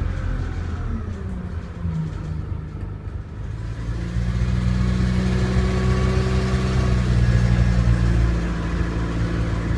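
Euro IV Cummins diesel engine of an Alexander Dennis Enviro 200 bus running, quieter around three seconds in, then louder and steady.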